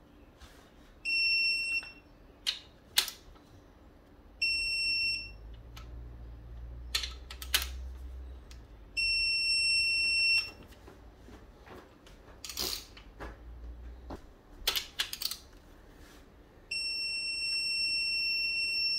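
Electronic torque wrench beeping four times, each a steady high-pitched beep, the later ones longer, as main bearing cap bolts on a BMW M54 engine are tightened to 20 N·m; the beep signals that the set torque has been reached. Ratchet clicks and tool knocks come between the beeps.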